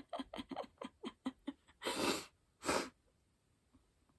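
A person's string of short, quick catching breaths, then two loud sneezes in quick succession about two seconds in, set off by a cotton swab tickling deep inside the nose.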